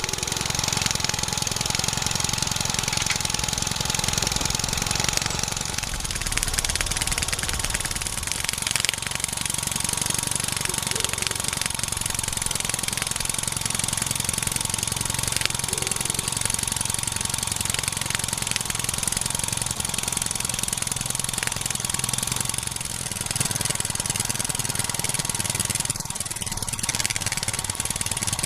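RW-BL1K miniature single-cylinder live steam engine running steadily on steam from its alcohol-fired boiler: a fast, even beat with a hiss of steam.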